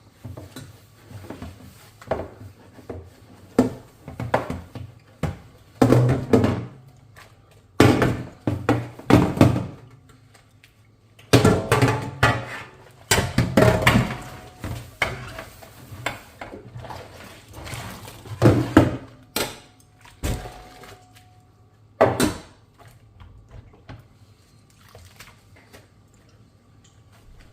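Dishes being washed by hand: irregular clinks and knocks of crockery set down and handled, mixed with stretches of water swishing, growing sparser and quieter in the last few seconds.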